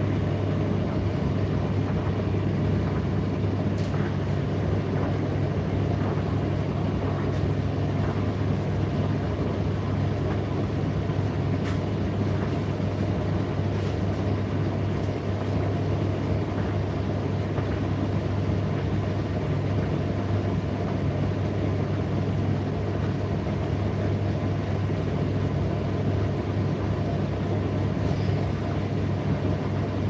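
Indesit IDC8T3 condenser tumble dryer running mid-cycle: a steady low hum of the drum motor and fan with the drum turning. A few faint ticks come through now and then.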